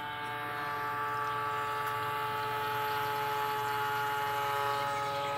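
Navage powered nasal irrigator's small electric motor pump running with a steady hum during a saline rinse cycle.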